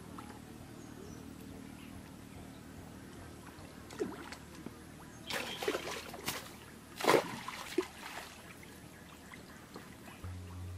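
Water splashing and pouring off a bamboo-framed square lift net as it is hauled up out of a pond, a cluster of irregular splashes starting about four seconds in, the loudest a little past the middle.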